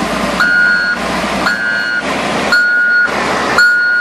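Backup alarm of a CAT wheel loader beeping about once a second, each high beep lasting about half a second, four beeps in all, over steady engine and rushing floodwater noise.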